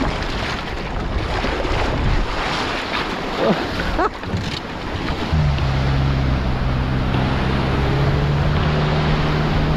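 Surf washing and breaking around a boat trailer in shallow water, with wind on the microphone. About five seconds in, a vehicle engine comes in and runs steadily at low revs, the tow vehicle hauling the boat trailer out of the water.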